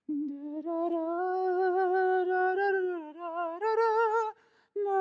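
A man's voice singing a wordless, mournful tune in long held notes with a slight waver, breaking off briefly about four seconds in before going on.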